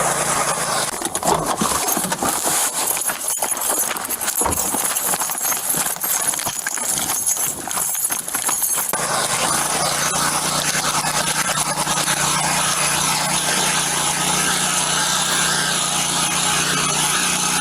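Running footsteps and the jostling rattle of a police body camera, with irregular thuds for about nine seconds, then a steady hum.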